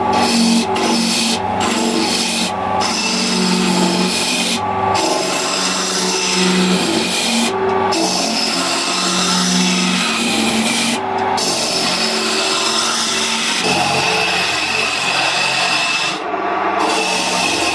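Gouge cutting into a glued-up pine and walnut blank spinning on a wood lathe: a continuous loud scraping hiss over the hum of the lathe. The hiss breaks off briefly about seven times as the tool lifts off the wood, with the longest break near the end.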